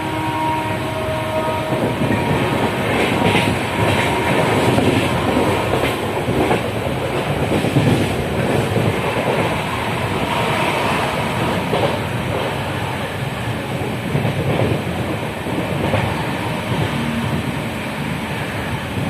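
Passenger train running along the track: a steady rumble with the wheels clattering over the rails.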